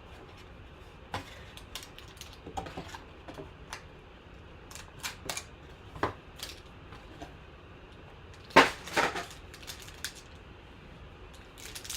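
Trading card packs and cards being handled and opened: scattered light clicks and short rustles of wrapper and card stock, with a sharper cluster of clicks about two-thirds of the way through.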